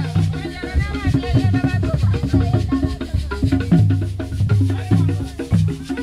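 Music with a steady drum beat, light rattling percussion and a held bass line.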